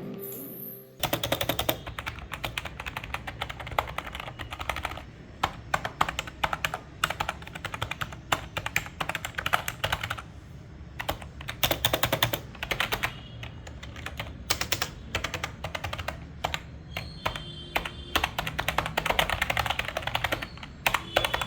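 Typing on a RedGear Blaze 7 semi-mechanical gaming keyboard: quick runs of key clicks starting about a second in, in bursts with brief pauses between them.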